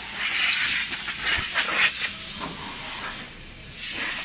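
A hiss of rushing air, in uneven surges that are strongest over the first two seconds, dip, and swell again briefly near the end.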